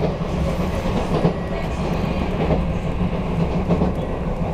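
Izukyu electric train running along the line, heard from inside the passenger car: a steady low rumble of wheels and motors.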